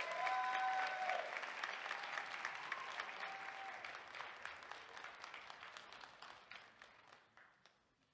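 Audience applauding, the clapping thinning out and fading away over several seconds.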